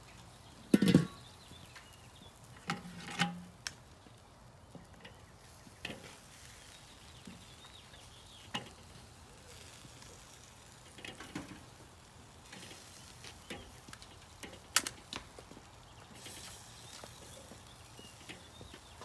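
Metal tongs clicking and knocking against the grate of a Weber charcoal kettle grill as chicken drumsticks are moved, in scattered short knocks with the loudest about a second in.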